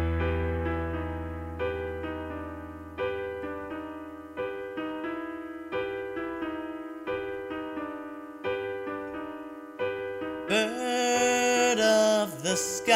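Soft piano music: single notes struck in an even, slow pattern over a held bass note that fades out about four seconds in; a singing voice comes in near the end.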